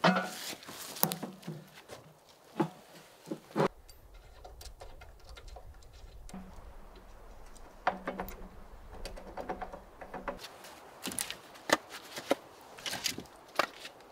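Sharp knocks, clunks and rustling from a small cast-iron wood stove being set down on leaf litter and handled. A low steady rumble runs underneath through the middle stretch.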